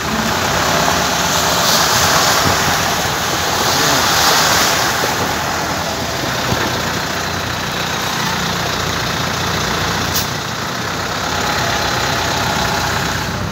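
Heavy rain and rushing floodwater splashing around the vehicle, a steady loud wash of noise, with the vehicle's engine running low underneath, picked up by a phone held out of the cab window.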